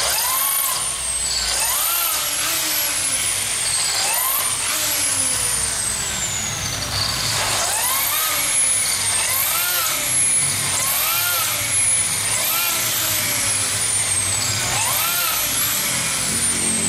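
Electric drill with a diamond-tipped bit boring into a granite tile, its whine rising and falling about once a second as the drill is run in short bursts, with high falling whistles over it.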